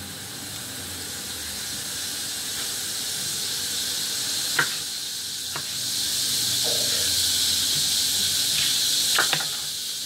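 Steady hiss of cooking oil heating in a pan on the stove, growing louder, with a few sharp taps of a knife on a chopping board.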